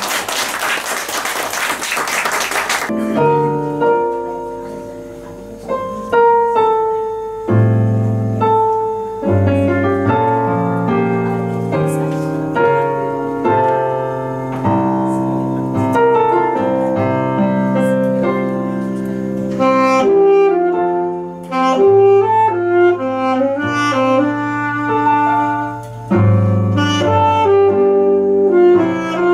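Live band music: a saxophone plays a slow melody over keyboard piano chords. It opens with about three seconds of a loud noisy wash before the notes come in.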